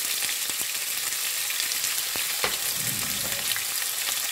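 Freshly added chopped onion sizzling in hot oil with tempered cumin and mustard seeds and curry leaves: a steady frying hiss with a few sharp pops.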